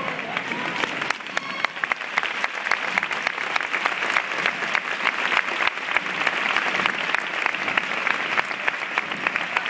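A large crowd applauding, dense and steady clapping that breaks out just as the procession band's march ends.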